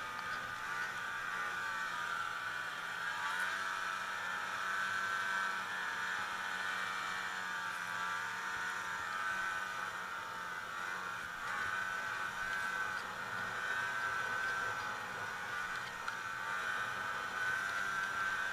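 Snowmobile engine running steadily while riding along a trail, its pitch wavering slightly up and down with the throttle.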